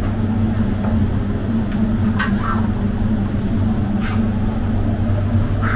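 Steady low mechanical hum, with a few short sharp clicks of a knife cutting through limes.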